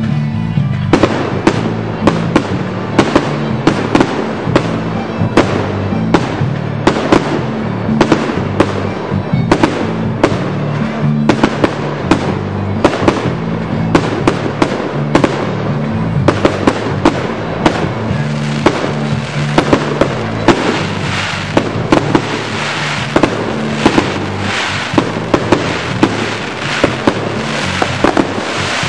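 Aerial fireworks firing in quick succession, sharp bangs and crackling bursts several times a second, starting about a second in. Background music with a steady bass line plays underneath.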